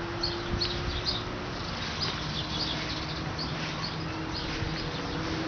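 Small birds chirping: short high chirps repeating irregularly, over a faint low steady hum.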